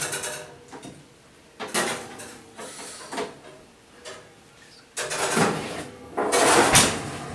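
Metal baking tray and oven shelf scraping and rattling as a tray of ribs is slid out of the oven, in several short scrapes, with the longest and loudest about five to seven seconds in.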